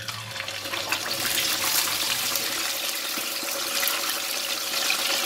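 Whole black pomfret sizzling and crackling as it goes into very hot deep-frying oil. The hiss swells over about the first second, then holds steady.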